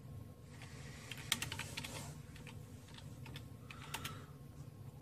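Typing on a computer keyboard: faint key clicks in a few short, uneven runs.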